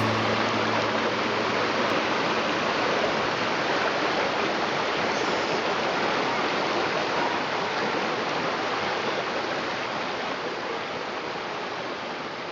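Steady rush of a mountain stream's flowing water, fading out gradually toward the end.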